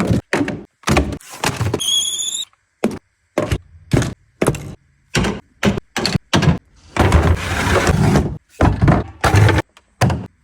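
A rapid string of short knocks, thuds and bangs, like a cabinet or its doors being handled, each cut off abruptly. A brief high whistle comes about two seconds in, and a longer scraping noise a little past the middle.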